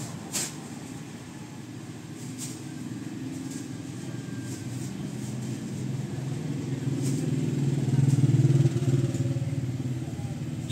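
A motor vehicle's engine running, growing louder to a peak about eight seconds in and then easing off, like a vehicle approaching and passing. A sharp click comes just after the start.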